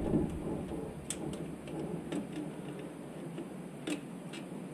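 A few scattered light clicks and taps of hand tools and small metal parts being handled, over faint background noise.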